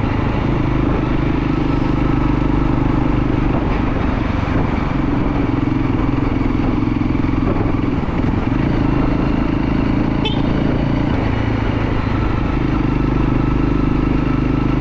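Motorcycle engine running at a steady, even speed while being ridden.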